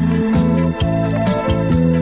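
Instrumental break in a brega love song: held chords over a bass line with a steady beat, no singing.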